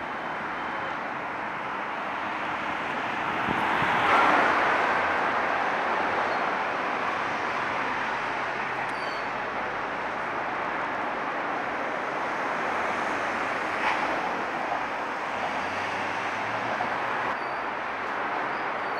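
Steady background traffic and rail noise from a city street and station, swelling about four seconds in as something passes.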